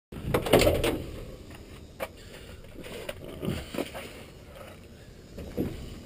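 Service van door being handled: a loud clunk about half a second in, then a few lighter clicks and knocks.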